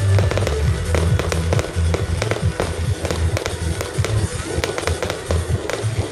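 Aerial fireworks shells going off with frequent sharp bangs, over loud music with a pulsing bass line.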